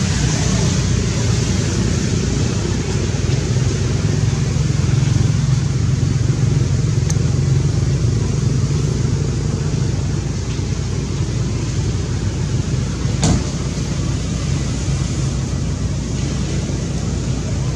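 Steady outdoor background rumble and hiss with no clear pitch, and one sharp click about thirteen seconds in.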